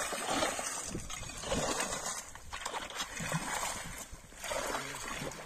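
Icy water sloshing and splashing in a channel cut through the ice of a frozen ditch, as long poles stir the slush and broken ice chunks.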